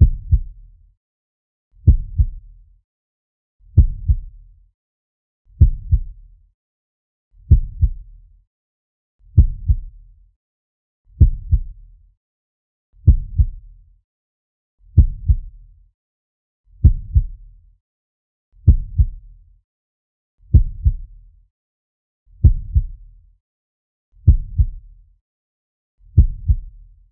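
Slow heartbeat sound effect: a low double thump, lub-dub, repeating steadily about once every two seconds.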